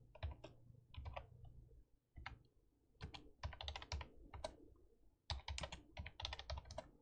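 Quiet typing on a computer keyboard: runs of quick keystrokes, broken by short pauses about two seconds in and about five seconds in.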